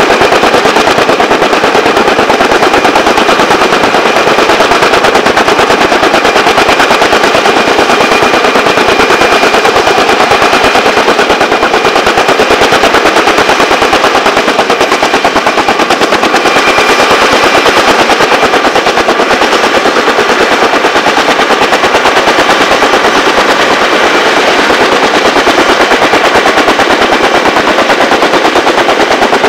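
Kaman K-MAX heavy-lift helicopter's intermeshing twin rotors, a loud, rapid, steady chop of blade beats.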